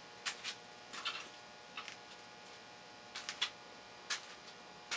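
Light, irregular clicks and knocks of small objects being shifted about while someone hunts for a can of contact cleaner.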